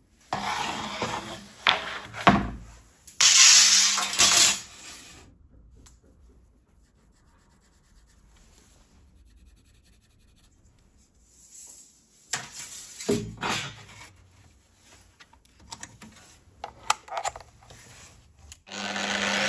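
Wood and metal pieces handled on a workbench: bursts of rubbing and scraping with a few sharp knocks, then a quiet stretch. Near the end an angle grinder starts and runs steadily.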